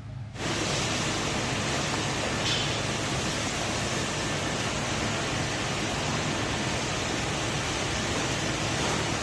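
A loud, steady hiss that cuts in abruptly about half a second in, with faint background music underneath.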